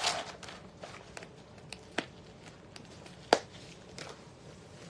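Handling noise as handbags are moved about at the counter: a scatter of light clicks and taps, with two sharper knocks about two and three and a half seconds in, the second the loudest.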